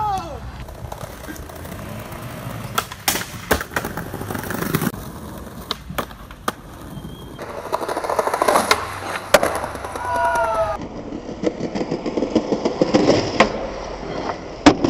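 Skateboard wheels rolling over concrete paving, swelling and fading as the board passes, with several sharp clacks of the board hitting the ground.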